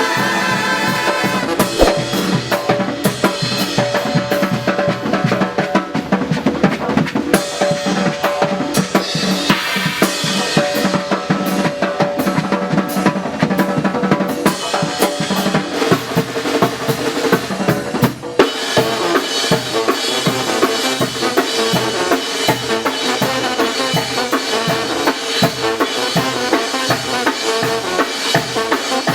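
Live Oaxacan brass band's percussion section playing a loud drum break, congas with bass drum and snare driving a fast steady rhythm. Sustained horn notes join in over the drums in the last third.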